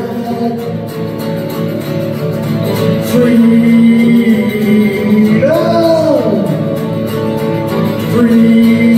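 A man singing while strumming an acoustic guitar. Past the middle his voice swoops up and back down on a held note.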